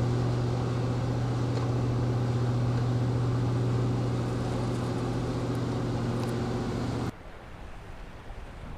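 Steady, loud marine engine hum with a low drone and even overtones, over water noise. It cuts off abruptly about seven seconds in, leaving quieter wind and water.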